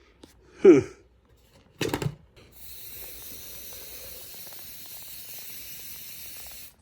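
A brief falling sound and a knock, then an aerosol can of smoke-alarm test spray hissing steadily for about four seconds before cutting off sharply.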